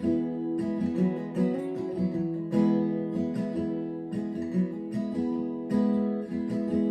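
Martin acoustic guitar strummed in a steady rhythm, ringing chords with several strokes a second, in an instrumental passage with no singing.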